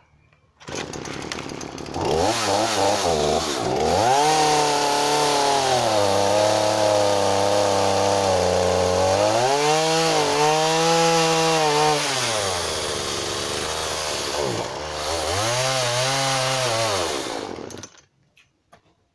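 Chainsaw starting up suddenly about a second in, then running hard and cutting through a log, its pitch sagging under load and rising again several times before it stops abruptly near the end.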